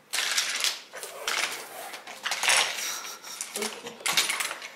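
Hard toys clattering and rattling: a toy monster truck and wooden train track pieces knocked and pushed about in a series of bursts.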